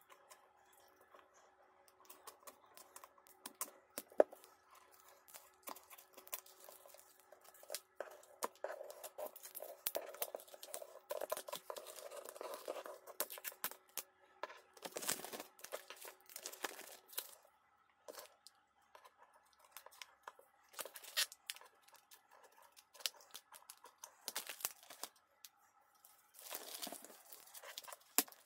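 Router packaging being opened by hand: plastic and tape tearing and crinkling, with irregular clicks and knocks of handling and a sharp click about four seconds in.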